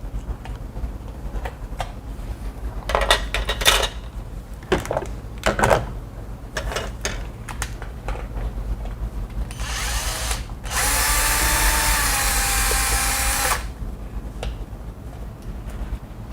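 Power drill-driver motor running steadily for about three seconds, backing out the mounting screws of an old wall switch panel. It is preceded by a few clicks and knocks of handling and a brief first burst.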